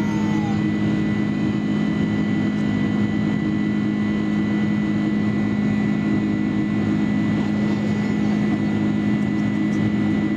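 Boeing 747-400 jet engines and airflow heard inside the passenger cabin as a steady drone, with a deep hum and a thin high whine held level throughout.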